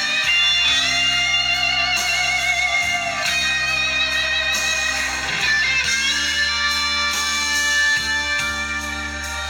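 Guitar-led rock music played through Cerwin-Vega SL-15 floor-standing speakers and picked up by a phone microphone. Long held lead-guitar notes with vibrato ride over sustained bass notes, changing every second or two.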